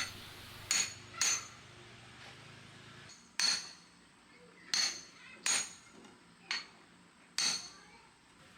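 Hammer blows on metal, about eight irregularly spaced ringing strikes, some in quick pairs, as a knife blade is worked by hand.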